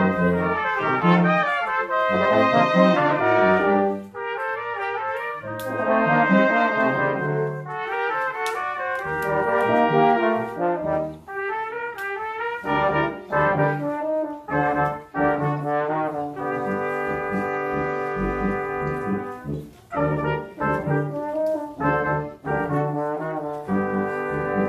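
Brass quintet with trumpets, trombone and tuba playing a tango live. Short accented chords in the first part give way, about two-thirds in, to long held chords over a repeating bass line.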